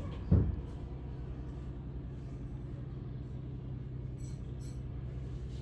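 A single low thump about a third of a second in, then a steady low hum from the cruise ship's machinery.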